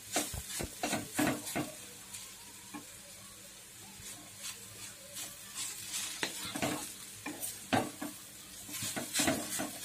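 A spatula stirring and scraping grated sweet potato as it fries in ghee in a nonstick kadhai: repeated strokes over a soft sizzle. The stirring eases for a couple of seconds in the middle, then picks up again.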